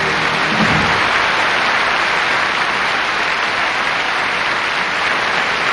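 A large theatre audience applauding steadily at the end of a song.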